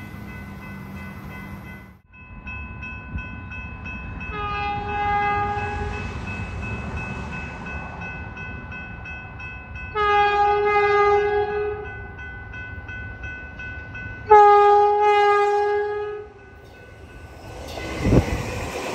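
Metrolink Arrow diesel multiple unit sounding its horn in three blasts of under two seconds each, a few seconds apart, as it approaches a level crossing, with the crossing bell ringing steadily underneath. Near the end the train rushes past close by.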